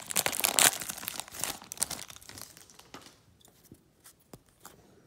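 Foil wrapper of a Panini Donruss baseball card pack crinkling and tearing as it is ripped open and the cards are pulled out. Loudest in the first two seconds, then fading to a few faint taps.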